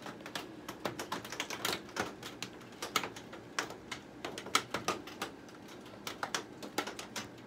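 Rain drops striking the greenhouse roof: a dense, irregular run of sharp ticks and taps, several a second, over a faint hiss.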